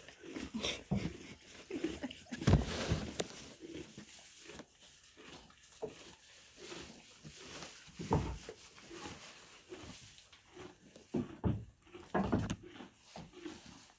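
Miniature donkeys eating hay from a plastic feed tub: irregular rustling and crunching of hay as they munch, with a few heavier thumps, the loudest about two and a half seconds in and others near eight and twelve seconds.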